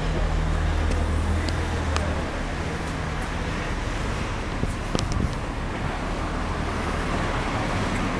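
Street traffic: a motor vehicle's engine runs with a steady low hum under general road noise, with a few short faint clicks about two and five seconds in.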